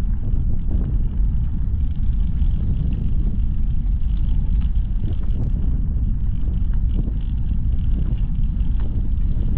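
Steady low wind rumble buffeting the camera microphone of a moving bicycle, with bicycle tyres rolling over a gravel towpath.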